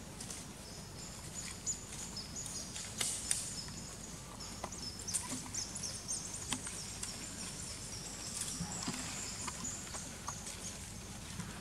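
Outdoor ambience: birds giving short, high, thin chirps over and over, with scattered soft clicks and rustles in dry leaf litter under a low steady rumble.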